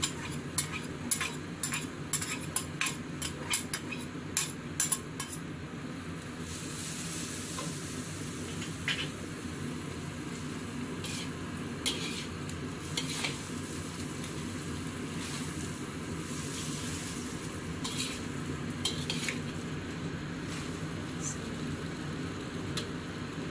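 Frog meat and chives stir-frying in oyster sauce in a pan: a steady sizzle, with a spatula clacking against the pan about twice a second for the first five seconds, then only a few scattered scrapes over the sizzling.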